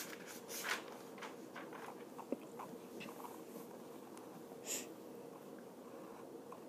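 Faint scratching of drawing strokes on paper, a string of short strokes with a louder one near the start and a short hissy one near the middle, over a steady faint hum.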